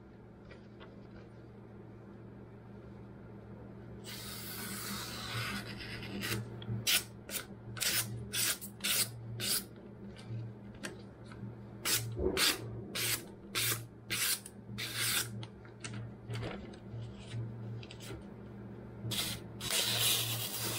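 Freshly sharpened kitchen knife slicing through a sheet of printed paper in a cutting test of its edge. The test is a quick run of many short, crisp cuts after a rustle of the paper being handled, with a couple of longer slices near the end.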